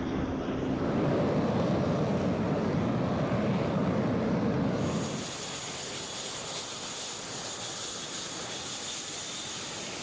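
Jet aircraft noise from BAE Hawk jet trainers. A low rumble runs for about five seconds, then changes abruptly to a quieter, steady hiss with a high-pitched engine whine.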